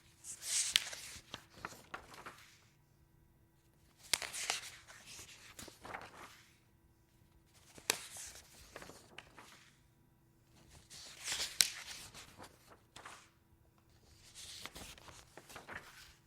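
Pages of paper being turned one at a time, about five turns, each a brief rustle and flap with crisp crackles, with short quiet pauses between them.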